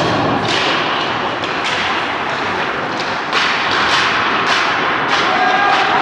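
Ice hockey game in a rink: a run of sharp knocks and thuds, roughly one or two a second, over a steady hiss of skates and arena noise.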